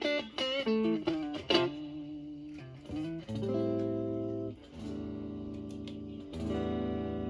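Electric guitar played clean: a Stratocaster with three single-coil pickups through a Marshall Valvestate amp, with no effect on. It plays a quick single-note lick with string bends and vibrato, then three ringing chords, each held for a second or two.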